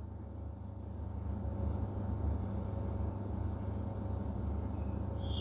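Steady low background rumble with a faint hum, room tone, and a brief faint high tone near the end.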